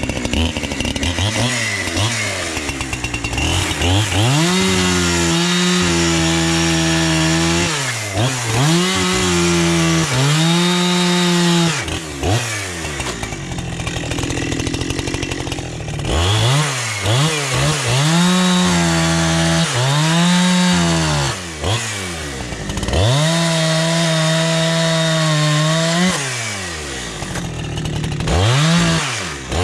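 Two-stroke chainsaw, the freshly rebuilt '72' with its carburettor set rich, revved up over and over, each time climbing to full throttle, holding for a second or several as if cutting through wood, then dropping back to idle.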